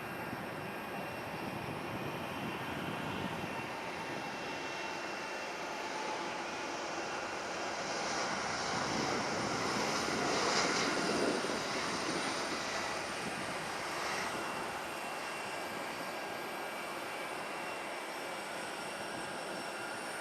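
Airliner engine noise passing by: a steady background rumble swells to a peak about ten seconds in, then fades over the next few seconds.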